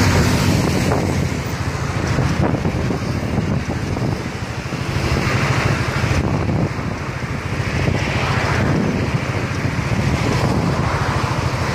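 Wind buffeting the microphone, a heavy rumbling noise that swells and dips, over a steady wash of traffic and tyres on a wet multi-lane road below.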